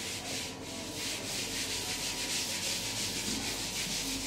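Handheld whiteboard eraser rubbing marker ink off a whiteboard in quick back-and-forth strokes, a steady scratchy hiss.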